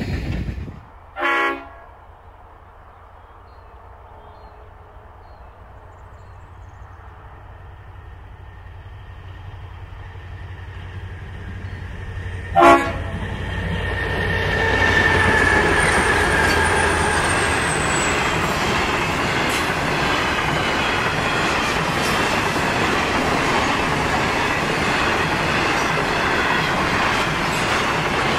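A diesel grain train's horn gives two short blasts, the second much louder. Its rumble then builds as the G-class and 81-class locomotives pass, giving way to a steady rumble and clatter of loaded grain hopper wagons rolling by, with a brief falling whine about a third of the way in.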